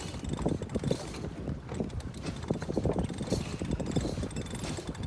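Irregular knocks and rattles of a sailboat's rigging and deck gear while the sail is being hoisted by hand.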